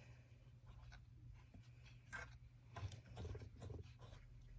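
Near silence, with a few faint light clicks and rustles about two and three seconds in.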